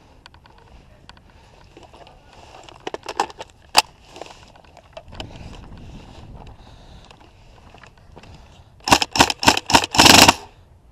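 Tokyo Marui high-cycle AUG airsoft electric gun firing: a few quick shots about three seconds in, then near the end four short bursts followed by a longer full-auto burst.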